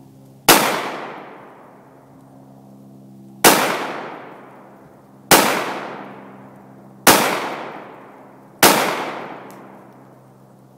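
9mm pistol fired five times into an AR500 steel plate, each sharp shot trailing off over about a second. The first shot comes just after the start and the rest follow roughly every two seconds.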